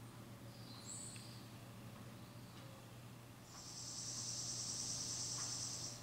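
A high, buzzy animal trill lasting about two and a half seconds, starting a little past the middle, preceded by a short high chirp about a second in. A steady low hum runs underneath.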